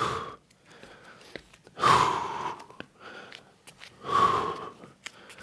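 Three heavy, forceful breaths, about two seconds apart, from a person exerting themselves during a walkout-to-plank exercise.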